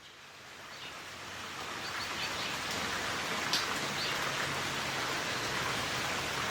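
Rain shower falling steadily, fading in over the first few seconds. A few faint short bird chirps come about two seconds in, and one sharp tick about three and a half seconds in.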